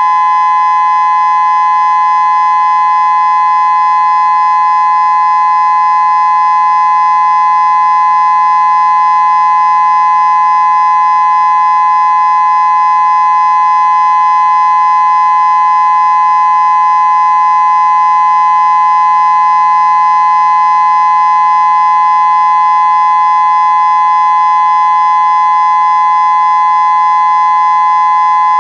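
Federal Signal Modulator 6024 electronic tornado siren sounding its steady Alert signal: a loud, constant two-note tone that neither rises nor falls.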